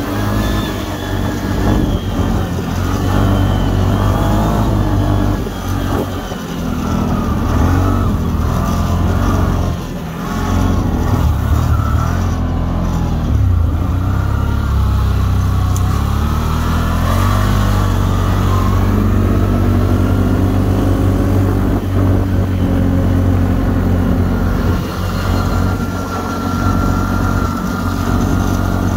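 CFMOTO CForce 850XC ATV engine, a V-twin, running under load as the quad crawls through deep snow on Camoplast Traxion tracks, its pitch rising and falling with the throttle.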